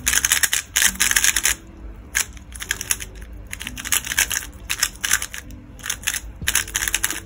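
Mystic RS3M 3x3 speedcube being turned quickly by hand: runs of fast plastic clicking and swishing layer turns with short pauses between them. The cube is new, its factory lube not yet broken in, so it turns heavy and gummy.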